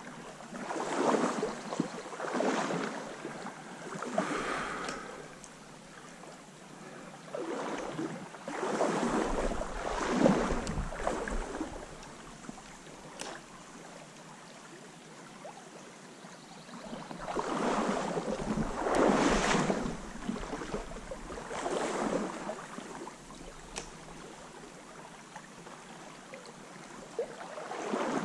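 Someone wading through a shallow stream, water sloshing around the legs in a surge with each stride. The strides come in runs with quieter pauses between, over the steady rush of the stream.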